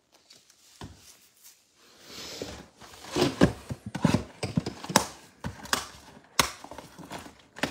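Trading card packs and boxes being handled on a tabletop: cardboard and plastic wrap rustling, with a series of sharp taps and knocks starting about two seconds in.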